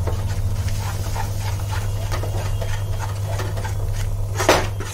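Metal spoon scraping and knocking around a nonstick kadhai as thick besan and sugar-syrup paste is stirred fast, a few strokes a second over a steady low hum. One louder knock comes near the end.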